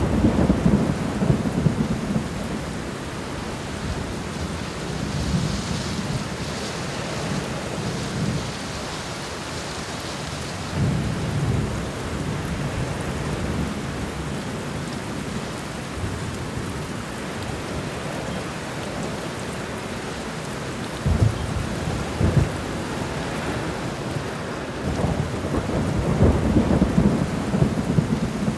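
Thunderstorm: steady rain with thunder rumbling again and again, two short sharp cracks about three-quarters of the way through, and a longer rumble near the end.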